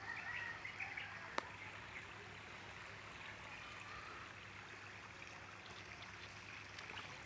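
Faint steady sound of running creek water, with a few bird chirps in the first second and one sharp click about a second and a half in.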